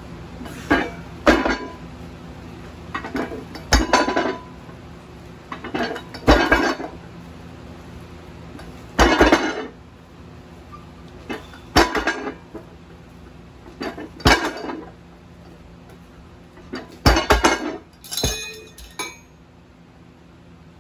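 Weight plates on a loading pin and the chain linking them to curl handles, clinking and clanking with each repetition of a curl. The clanks come about every two to three seconds, eight times, often as a quick double knock, and stop near the end.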